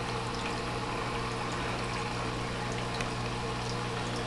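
Aquarium filter water steadily splashing and trickling into the tank, over a constant low electric hum from a pump motor.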